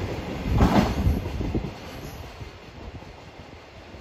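Wheels of the last container flat wagons of a freight train clattering over rail joints, a quick run of clacks about half a second in, then the train's rumble dropping away and fading as it recedes.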